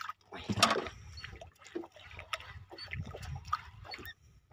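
Sea water lapping and sloshing against the hull of a small boat in irregular splashes, one louder about half a second in.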